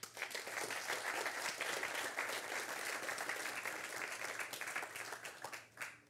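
Audience applauding: dense, steady clapping that dies away just before the end.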